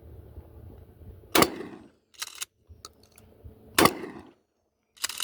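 Gunshots fired in the open: two loud shots about a second and a half and four seconds in, each with a short echo. A weaker clatter falls between them, and a third sharp report comes at the very end.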